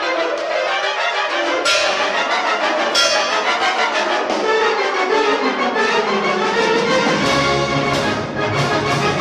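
Student concert wind band playing sustained brass and woodwind chords, with two sharp accents about two and three seconds in and low brass coming in about seven seconds in.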